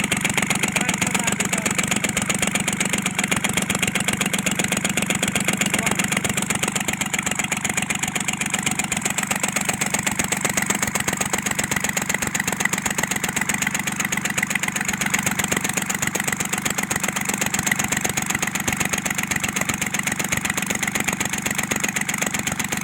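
Kubota L1-255 tractor's diesel engine idling steadily with an even, rapid pulse, an engine that knocks and blows white smoke from a defective valve seat in the cylinder head.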